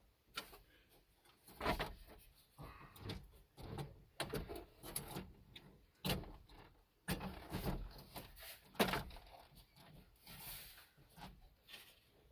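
Irregular clicks, knocks and scraping of hands working on a plastic double-DIN stereo install kit and its screws, in short uneven bursts with a sharper knock near the middle and another about three-quarters through.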